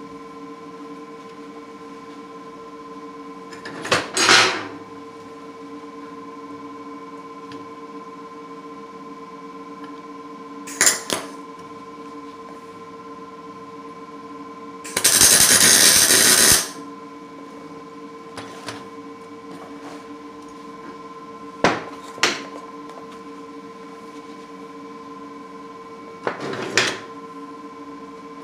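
A Lincoln 210 MP MIG welder laying one short tack weld, a crackling burst about a second and a half long halfway through. The rest is metal parts and tools knocking and clattering as they are handled on the bench, over a steady hum.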